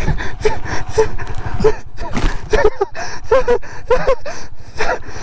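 A man's breathless gasps and short cries, with scuffs and knocks from the camera being jostled about in snow.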